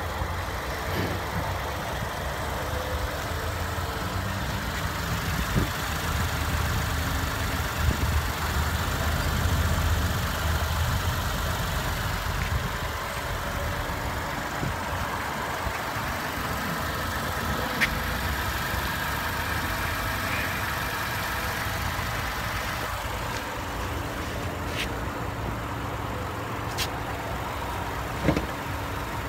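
A 2015 Lexus IS250's 2.5-litre V6 idling steadily, with a few short knocks scattered through.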